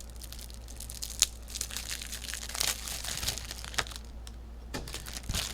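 Plastic wrapping crinkling and tearing as trading cards are unpacked and handled, with irregular crackling and a sharp click about a second in.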